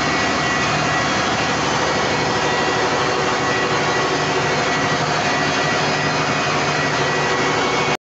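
Large diesel generator set running steadily, a loud even engine drone with a thin steady whine over it.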